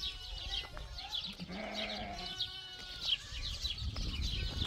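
A sheep or goat gives one drawn-out bleat about two seconds in, over steady high-pitched chirping.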